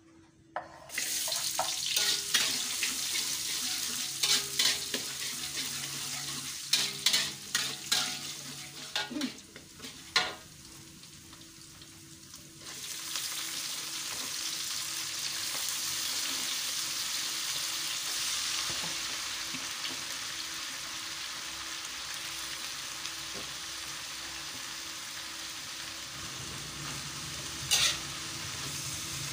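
Oil sizzling in a metal wok, with a spatula clicking and scraping against the pan. About 13 seconds in, a louder, steady sizzle sets in as water spinach goes into the hot oil and is tossed. There is a single knock near the end.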